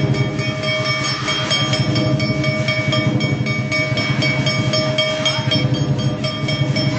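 Lion dance percussion: a drum beaten in a fast, steady rhythm with cymbals clashing on the beats, several strikes a second, over the continuous ringing of the cymbals.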